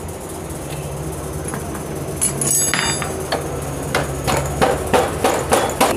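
Metal clinks and knocks of a socket wrench on the rear axle nut of a Honda CD70 motorcycle as the wheel is fitted. The strikes are irregular and come mostly in the second half, over a steady low hum.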